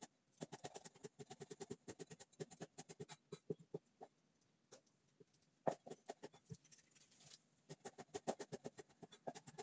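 Cleaver chopping fast on a round wooden chopping board, mincing dried red chillies: a quick run of knocks, about seven a second, with two short pauses.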